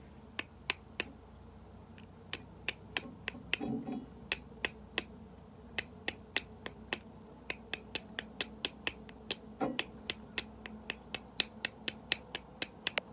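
A small hand-made fire steel striking a piece of chert again and again, a long run of sharp clicks at about two or three a second, with a brief scrape now and then. It is flint-and-steel fire lighting: each strike throws sparks at char cloth held on the chert.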